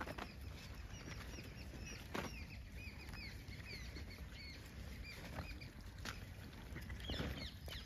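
Gray langurs feeding on scattered fruit, with scattered rustles and sharp taps on dry ground and leaves. Many short high chirps repeat through most of it.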